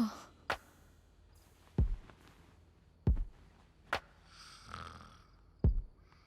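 Sparse percussion from a film score: deep booming drum hits alternating with sharper, higher clicks, irregularly one to two seconds apart, with a soft breathy swell about three-quarters of the way through.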